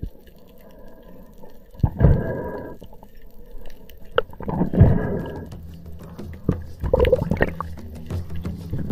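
Water gurgling and sloshing around a spearfisher's action camera, with short gurgling bursts about two and five seconds in. A low steady hum joins about halfway.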